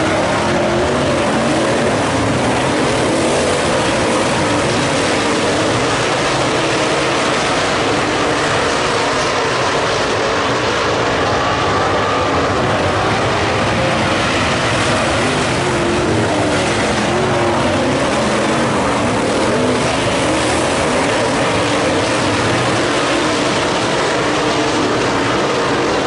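A field of USRA Modified dirt-track race cars racing, their V8 engines running hard together in a loud, unbroken drone as the pack laps the oval.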